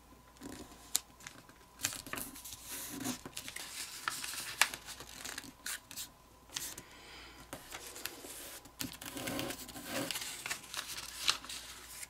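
A sheet of thin kami origami paper rustling and crinkling as it is folded and creased by hand, with scattered sharp crackles as the creases are pressed.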